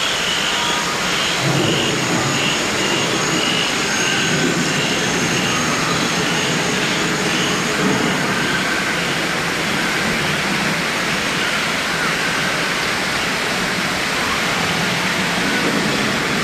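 Artificial waterfall running, a steady, even rush of falling water.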